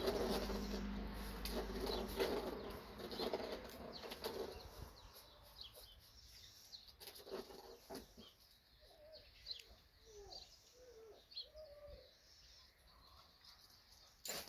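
Labrador puppies scuffling and tumbling together, with loud rustling and scrabbling that dies down after about five seconds. Faint, short squeaky whimpers follow near the middle.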